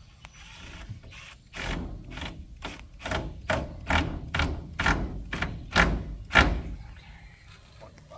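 Cordless drill/driver driving a screw through a screen-door hinge into the wooden frame, run in about a dozen short bursts about two a second, the last two the loudest.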